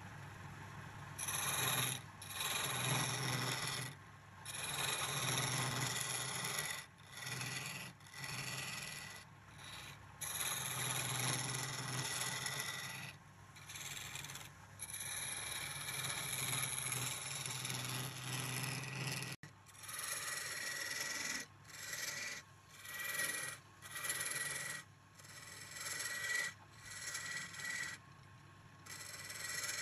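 Metal turning tool cutting a spinning wooden spindle on a lathe: a rasping scrape in a series of strokes of one to three seconds each, with short breaks between.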